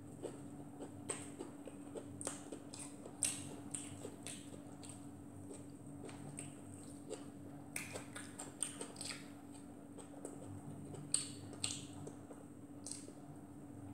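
Close-up eating sounds: chewing, lip smacks and small wet clicks as fried fish is picked apart by hand and eaten, in irregular short bursts. A faint steady hum runs underneath.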